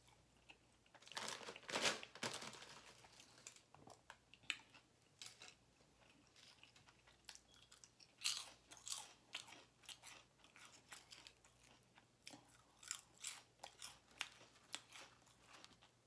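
Close-up chewing of a cheesesteak sub on a crusty, cheese-topped roll. Short crunches and mouth clicks come at irregular intervals, heaviest about a second or two in and again around eight and thirteen seconds in.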